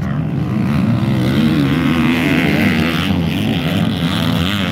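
Several motocross bike engines revving, their pitch rising and falling as the riders work the throttle and shift.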